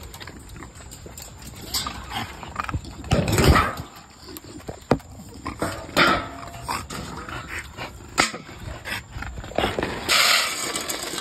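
American Bully dogs barking in short bursts in their kennels at feeding time, with a rustle of dry kibble being scooped about ten seconds in.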